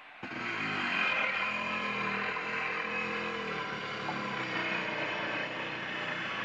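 Handheld electric power saw cutting through a concrete S roof tile. It starts just after the opening and runs loud and continuous, its pitch wavering as the blade bites into the tile.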